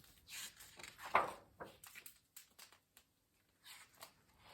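Pages of a picture book being handled and turned: a few short papery rustles, the loudest about a second in.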